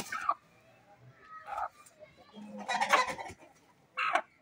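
Chickens clucking: a few short calls, separated by pauses.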